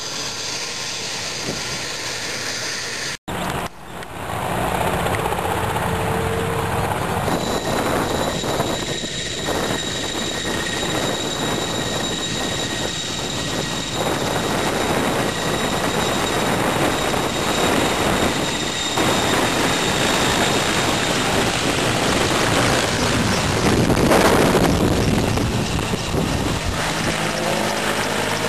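Helicopter running nearby, a dense steady rotor and engine noise. The sound cuts out for a moment about three seconds in and returns louder.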